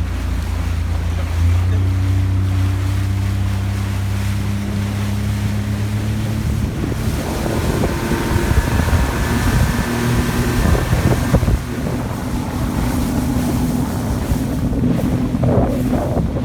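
Small boat's outboard motor running under way, its pitch shifting in steps as the throttle changes, with wind buffeting the microphone.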